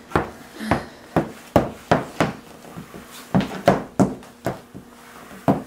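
A toddler clomping in oversized adult boots and pushing a toy mop across a vinyl kitchen floor: irregular knocks and clomps, about two or three a second.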